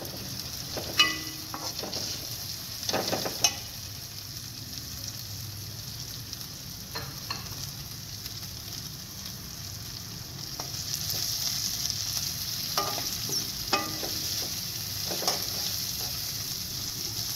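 Shredded cabbage, carrots and peas sizzling in oil in a stainless-steel kadai while a slotted metal spatula stirs them, with a few sharp clinks and scrapes of the spatula against the pan. The sizzle grows louder about two thirds of the way through.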